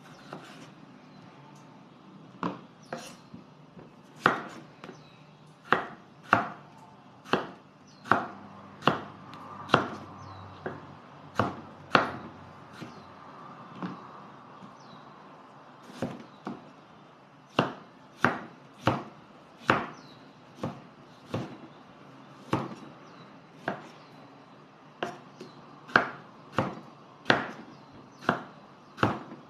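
Knife chopping tomatoes on a wooden cutting board: sharp knocks of the blade on the board, about one or two a second, with a lull of a few seconds near the middle.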